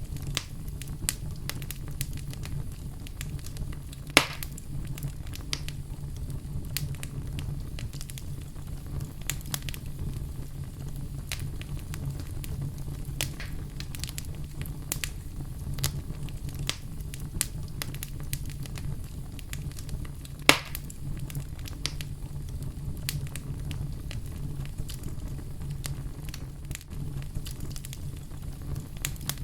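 Fire burning in a fireplace, crackling continually over a low, steady rumble, with two louder pops about four seconds in and again about twenty seconds in.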